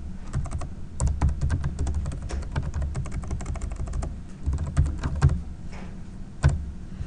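Typing on a computer keyboard: a quick run of keystroke clicks for a couple of seconds, then a few scattered taps.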